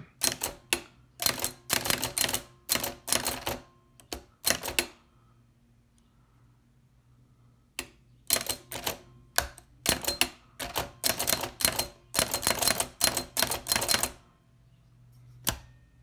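A 1908 Hammond No. 2 typewriter being typed on. Its hammer strikes the paper against the type shuttle from behind in quick, irregular keystrokes. The typing comes in two runs with a pause of about three seconds between them, and one last stroke comes near the end.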